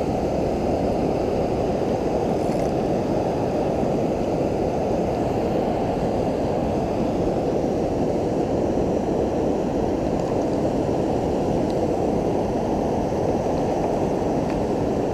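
Steady, muffled rushing of river water pouring over a weir and flowing past.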